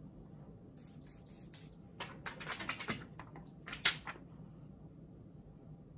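Faint rustling and light clicks as a paper perfume tester strip is handled and passed over, with a cluster of them about two seconds in and a sharper click near four seconds.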